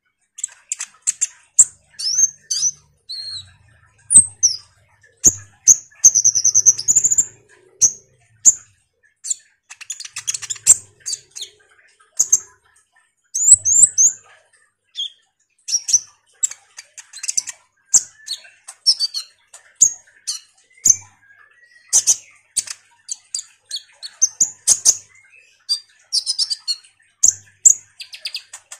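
Kolibri ninja sunbird singing a rapid, chattering run of short, high chirps and trills, with quick rising and falling sweeps and barely a pause: the bird in full chatty song. A few soft low thuds come in now and then.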